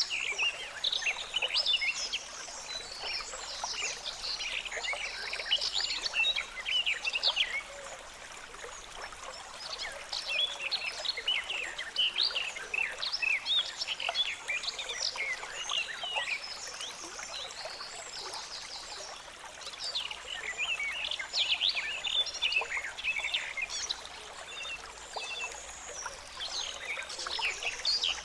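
Water trickling and gurgling in a small stream: a busy patter of bright little splashes and bubbling notes that swells and eases in waves every few seconds.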